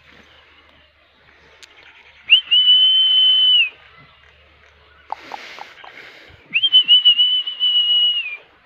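Two long, steady, high-pitched whistles, each about a second and a half, one just over two seconds in and one near the end, the second wavering slightly in loudness. Between them comes a short noisy burst.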